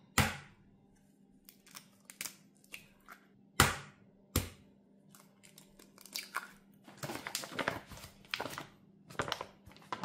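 Eggs cracked against the edge of a bowl: a few sharp knocks, the loudest twice about four seconds in. A stretch of crinkling and rustling follows in the last few seconds.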